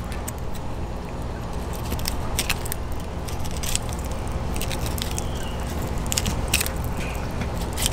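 Fillet knife slicing through a queen snapper's flesh along the backbone, giving scattered crackling clicks, over a steady low hum.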